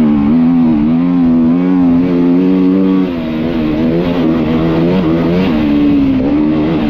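GasGas EC350F four-stroke single-cylinder enduro engine running under throttle on a dirt track, its pitch wavering as the throttle is worked. Revs hold high at first, ease off about three seconds in, and pick up again a little after five seconds.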